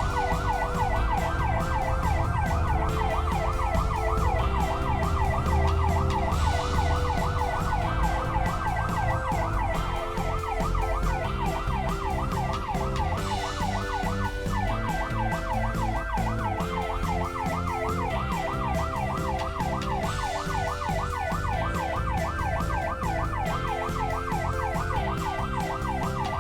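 An electronic siren in a fast yelp, its pitch sweeping up and down about three times a second without a break, over a low engine rumble.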